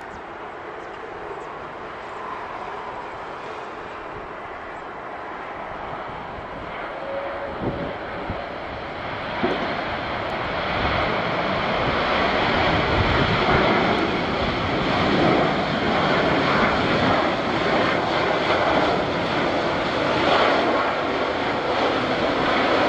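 Airbus A330-200 airliner's jet engines running through the landing and rollout, a steady roar that grows slowly and then swells sharply about nine to ten seconds in, staying loud to the end.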